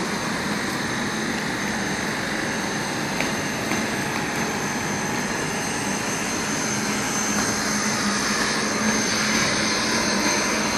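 Passenger coaches of a train rolling slowly past on the track: steady wheel-on-rail running noise with a thin high whine over it and a few light clicks.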